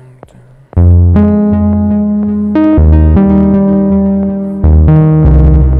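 Moog Sub 37 analog synthesizer played from its keyboard with a deep, bass-heavy patch. It comes in loudly just under a second in, then holds a series of sustained notes that change about every second.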